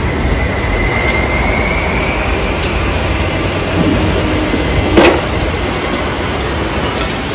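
Steady low rumble of a vehicle in motion, with a sharp knock about five seconds in.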